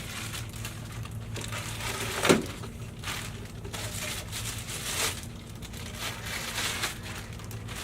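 Handling noises as the pieces of a door pull-up bar are picked up and fitted together: irregular crinkling and rustling, with one sharp knock a little over two seconds in.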